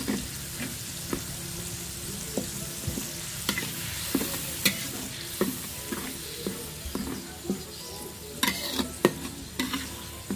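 Red spice paste with tomato pieces frying with a steady sizzle in a metal wok, while a metal spoon stirs it, clinking and scraping against the pan at irregular intervals.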